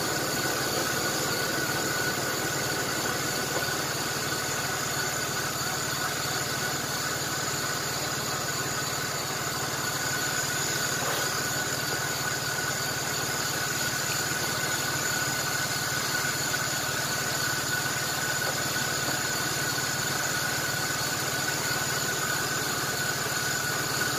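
1994 Chevrolet S10 Blazer's 4.3-litre V6 idling steadily, running on a newly replaced CPI spider injector, with a steady high whine over the engine note.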